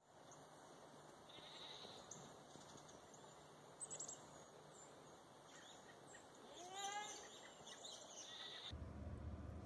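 A young goat bleats once, a short wavering call about seven seconds in, over faint background hiss. A few brief high chirps come around four seconds in.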